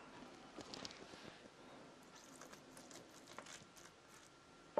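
Near silence broken by a few faint light taps and clicks, with one sharper click near the end: a metal spoon cutting into omurice and touching the ceramic plate.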